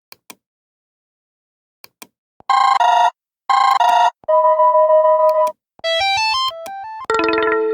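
A few faint clicks, then a run of Android 5.1 stock ringtone previews, each cut off after a second or so by the next. First comes a two-note electronic chime played twice, then a held two-tone sound, then a quick stepping run of notes, and near the end a fuller tune with several notes at once.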